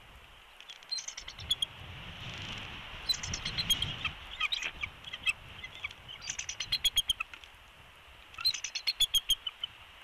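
Bald eagle calling at the nest: four bouts of high, rapid chittering notes.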